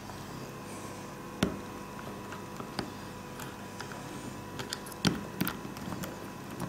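Light metallic clicks and clinks of a loose saw chain and guide bar being handled and fitted around the drive sprocket of a mini cordless chainsaw. There is one sharp click about a second and a half in, and a quicker run of clicks in the last two seconds.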